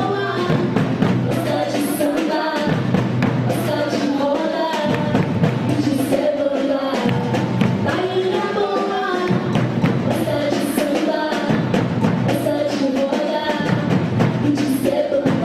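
Samba de roda music: singing over hand drums and percussion keeping a steady, quick beat.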